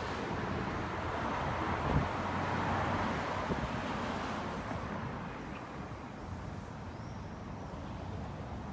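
City street traffic noise: a car passing on the road, its tyre and engine noise swelling over the first few seconds and then fading away.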